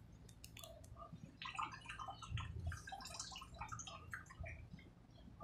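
A soaked garment being hand-scrubbed and lifted in a plastic bucket of soapy water: faint, irregular splashing and dripping of the wet fabric and water.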